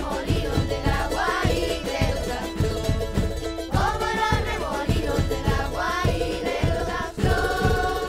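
A song with singing over a steady percussive beat.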